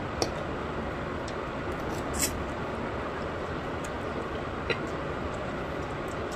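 Steady background noise with three short, sharp clicks spread across it; the middle click is the loudest.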